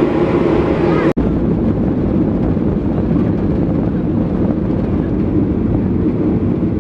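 Jet airliner engines and rolling noise heard from inside the cabin during takeoff: a steady, loud rumble that cuts out for an instant about a second in.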